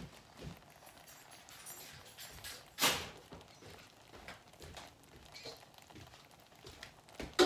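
A few sharp knocks over a faint steady hiss, the loudest about three seconds in and another near the end.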